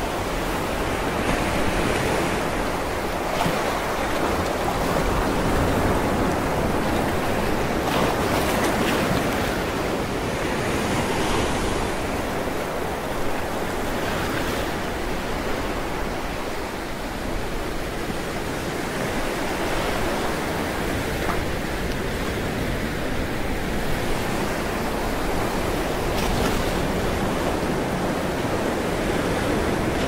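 Sea waves breaking against a rocky shore: a continuous rush of surf and spray, swelling every few seconds as each wave crashes on the rocks.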